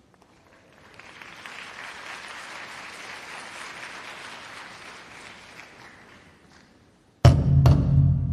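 Audience applause that swells and then fades away over about five seconds. After a brief hush, music starts abruptly near the end with heavy drum strikes.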